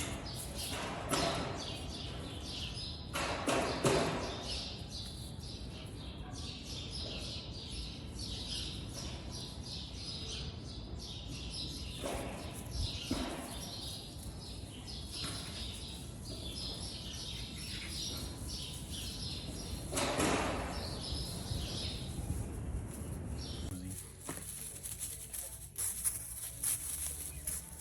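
Small birds chirping steadily, with a few short, louder noises about a second, four seconds, twelve seconds and twenty seconds in.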